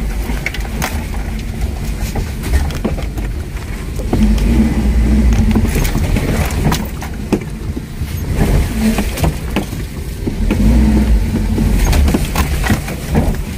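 Off-road vehicle's engine running under load while driving, swelling louder twice, with frequent knocks and rattles over rough ground.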